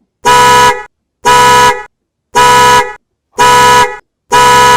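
A horn honking in even blasts, five of them, each about half a second long at about one a second, very loud.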